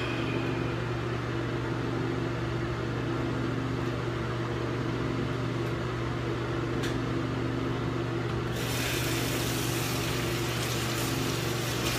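Steady low mechanical hum with a layer of hiss, which turns brighter and hissier about eight and a half seconds in.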